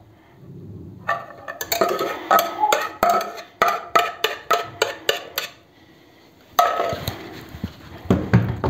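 Metal cooking pot being knocked and scraped against the tray to empty out the thick hot starch pudding: a quick run of ringing clanks, about three a second for some four seconds. A rougher metal clatter follows a little later.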